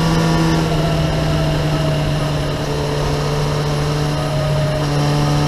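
Kawasaki ZX-9R's inline-four engine through a Remus aftermarket exhaust, running steadily on part throttle while riding, its pitch holding nearly level, with wind rush over the onboard microphone.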